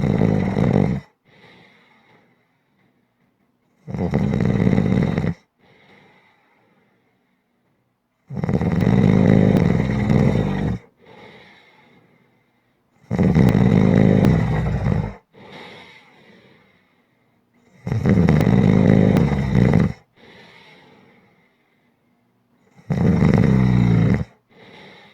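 Someone snoring loudly and regularly, with six long rasping snores about every five seconds. Each snore is followed by a brief, much softer breath.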